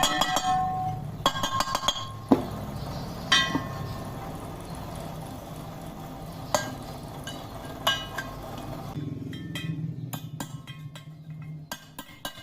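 Metal clinks and sharp ringing knocks, a handful of separate strikes, then a quicker run of light ticks near the end, over a steady low hum. Typical of metal parts being struck and handled while a loose wheel bearing housing is repaired.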